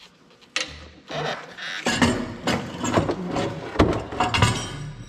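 Steel tractor linkage parts clinking and knocking as a lever is worked off its shaft by hand and lifted away: an irregular run of sharp metallic knocks and rattles, busiest in the middle.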